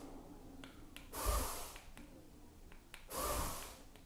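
A person breathing out through the nose close to the microphone, two short breaths about two seconds apart, with a few faint clicks between them.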